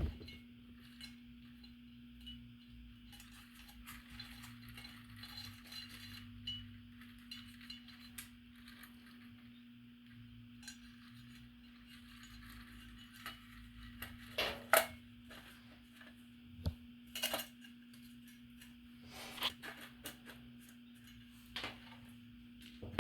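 Faint steady hum of the candy mill's small 12 VAC gear motor running, with scattered light clicks and clinks of small hard parts being handled; a few louder clinks come in the second half.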